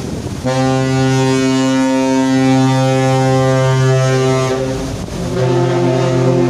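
Deep horns of large passenger ships sounding to each other: one long, steady blast of about four seconds begins half a second in, then a second blast, pitched a little differently, starts about five seconds in.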